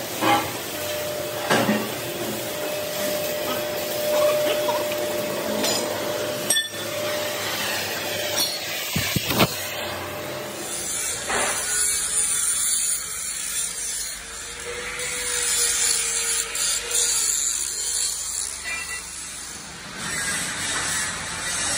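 Steel-fabrication workshop noise: a power tool runs steadily with a faint whine, with a few sharp metal clicks and knocks.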